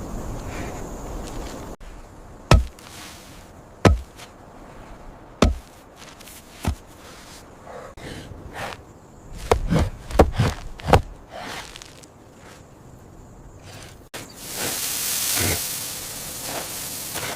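A series of sharp knocks at irregular intervals, a few of them close together near the middle, followed by a steady rushing noise in the last few seconds.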